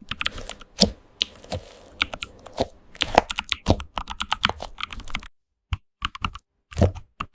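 Computer keyboard typing: quick, irregular keystroke clicks, several a second. About five seconds in the background hiss cuts out and the keystrokes continue more sparsely.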